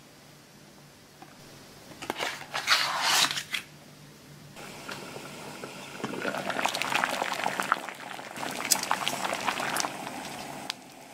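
Water at a rolling boil in a small pot: a steady bubbling hiss dense with crackling pops, starting about four and a half seconds in. Before it, about two seconds in, comes a brief burst of handling noise.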